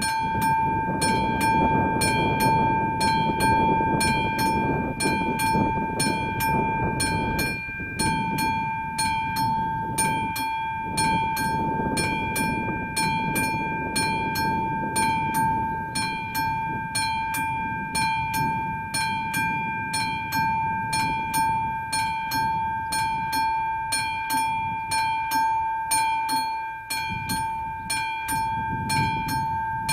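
Classic mechanical level-crossing bell on an AŽD 71 warning signal, ringing with rapid, even strokes, about three a second. It signals that a train is approaching and the crossing is closed. A low rushing noise lies underneath.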